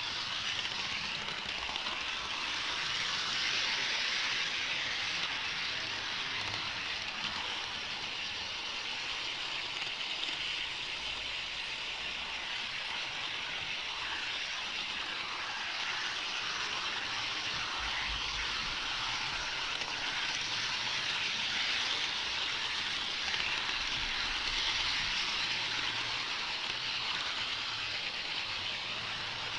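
An HO-scale model train running along its track, heard from a camera riding on it: a steady rushing rattle of small metal wheels on the rails and the drive running.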